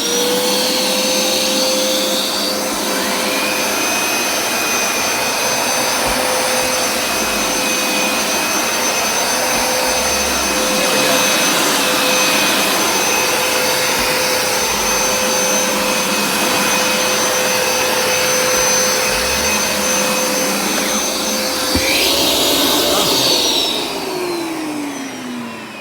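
Hoover SmartWash Plus carpet cleaner's suction motor running with a steady whine over a rush of air. Near the end its pitch lifts briefly, then the motor winds down in a falling glide.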